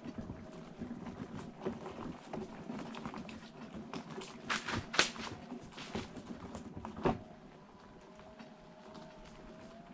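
Wheelchair wheels rolling over a loose gravel trail: a steady crunching and crackling of stones, with a few sharper clicks, the loudest about five seconds in and another about seven seconds in.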